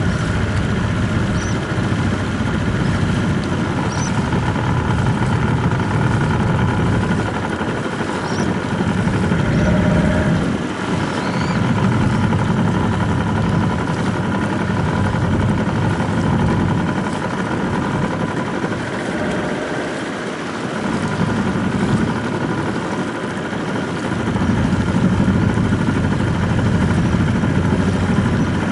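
A motorboat engine running steadily, its level swelling and dipping a little.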